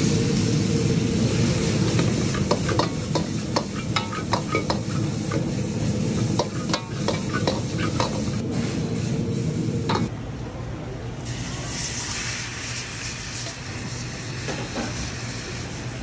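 Noodles stir-fried in a wok over a high gas flame: a metal ladle clanks against the wok many times over a steady rush of frying and burner noise. About ten seconds in, the noise drops sharply, leaving a quieter sizzling hiss.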